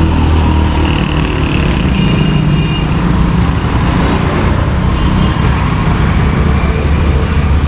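Street traffic: a motor vehicle engine running close by as a steady low rumble, with vehicles passing on the road.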